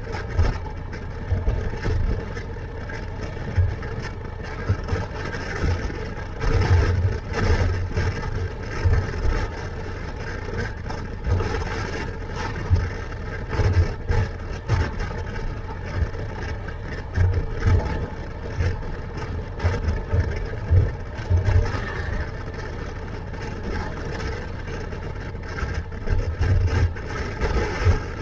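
Motorcycle engine running steadily at road speed, with wind buffeting the helmet-mounted microphone in irregular low gusts.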